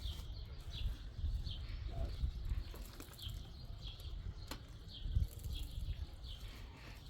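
A small bird chirping over and over, short falling chirps one to two a second, over a steady low rumble, with one sharp click about halfway through.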